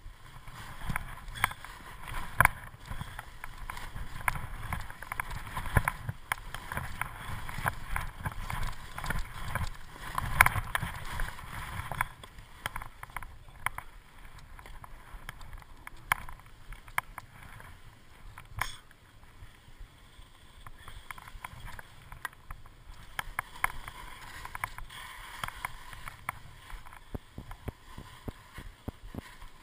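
Skis scraping and swishing over cut-up snow through a run of turns, with sharp knocks now and then; louder through the first dozen seconds, then softer.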